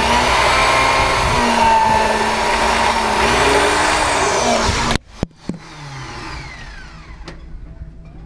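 Small electric power tool, likely a drill, running with its pitch rising and falling as the speed varies, then cutting off abruptly about five seconds in. Scattered clicks and knocks follow.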